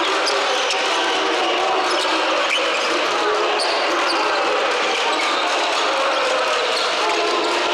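Sounds of a basketball game in a gym: the ball bouncing on the wooden court and sneakers squeaking, with a steady echoing mix of players' and spectators' voices.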